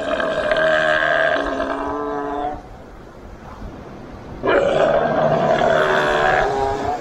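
A seal calling: two long, rough calls of about two and a half seconds each, with a pause of about two seconds between them.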